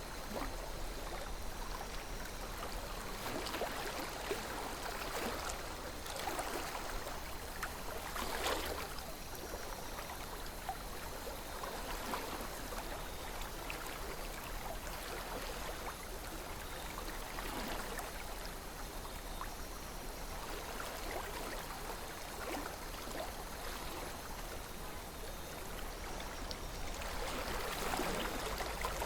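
A river flowing steadily over stones, with gurgles and splashes rising every second or two above an even rush of water.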